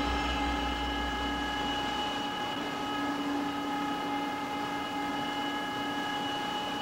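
Steady synthesized machine hum made of several held tones. A low pulsing under it fades out about two seconds in.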